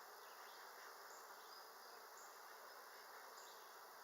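Faint, steady buzzing of a honeybee colony during a hive inspection.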